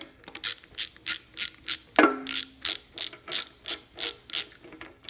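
Socket ratchet clicking as it is worked back and forth to snug an oil pan bolt, about three clicks a second, with one ringing metal clank about two seconds in.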